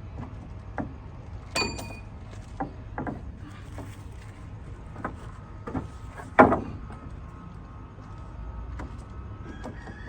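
Irregular knocks and clatter of construction work on timber, over a steady low rumble. One impact about a second and a half in rings with a metallic tone, and the loudest knock comes about six seconds in.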